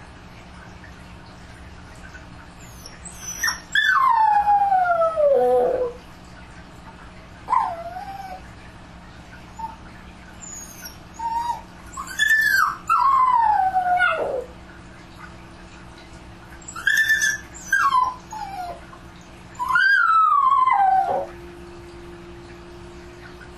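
A dog howling and crying. There are three long wails that start high and slide down, with shorter whining cries between them, over a steady low hum.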